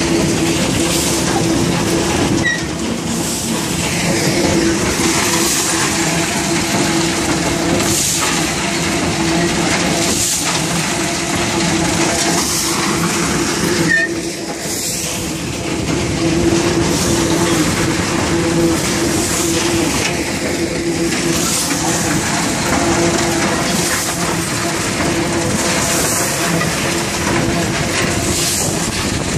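Bucket-chain gravel excavator running: the chain of buckets clanks and rattles steadily, with gravel pouring in swells every couple of seconds over a steady hum from its electric drive.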